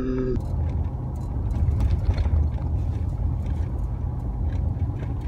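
Cabin noise of a Ford Super Duty pickup truck on the move: a steady low rumble of engine and tyres on the road.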